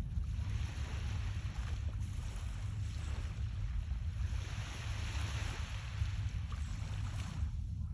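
Wind buffeting the microphone in a steady low rumble, over a hiss of surf that swells for several seconds in the middle and then drops away near the end.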